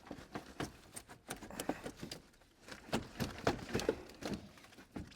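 Irregular clicks, taps and knocks as the radiator is worked loose and lifted out of a BMW E39's engine bay, a little louder about three to four seconds in.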